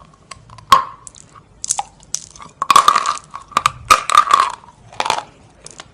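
A person biting and chewing a stick of chalk: a run of sharp, dry crunches at an irregular pace, several close together in the middle.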